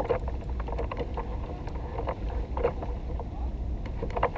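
Water lapping against a plastic fishing kayak's hull, with a steady low wind rumble on the microphone and a few short, irregular knocks.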